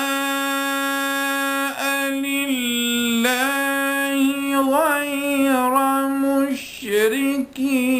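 A man reciting the Quran in the melodic mujawwad style, holding long drawn-out notes on a steady pitch with ornamented turns and short breaks between phrases.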